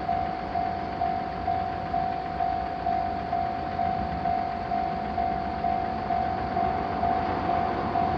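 Japanese railroad crossing alarm ringing its electronic bell tone about twice a second, steady and unbroken, over the rumbling noise of a passing train.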